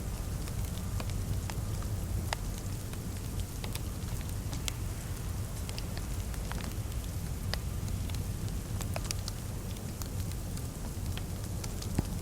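Fireplace fire crackling, with irregular sharp pops over a steady low rumble of burning.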